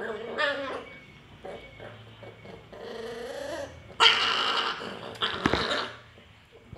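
Puppies at a shared food plate, growling at each other, with a loud snarling outburst about four seconds in.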